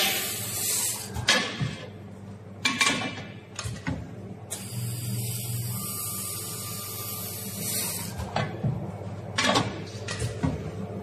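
Automatic laser welding machine on aluminium frame corners: a steady hum, with a hiss during the weld pass from about halfway in for three seconds. Between welds the machine moves, with a string of clunks and clicks.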